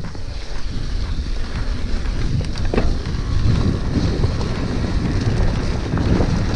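Wind buffeting the microphone of a bike-mounted action camera over the steady rumble of a mountain bike rolling down a dirt track.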